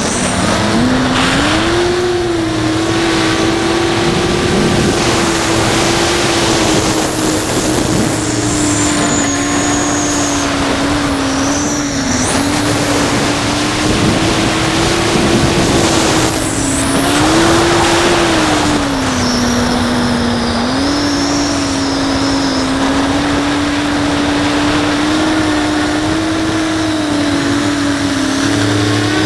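A 5-inch FPV quadcopter's brushless motors and propellers, heard from its onboard camera: a steady buzzing whine whose pitch dips and rises several times as the throttle changes, over a constant rushing noise.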